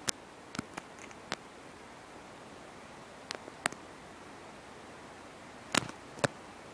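Scattered sharp clicks and snaps, about eight in all, over a steady hiss; the two loudest come close together near the end.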